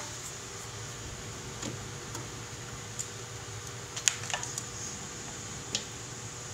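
Scattered light clicks and taps of a kitten's paws and claws on a hardwood floor as it pounces and turns while hunting a mouse, the sharpest about four seconds in, over a steady low hum.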